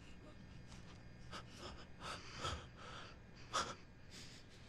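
A person breathing and gasping faintly, a run of short breaths with one sharper gasp about three and a half seconds in.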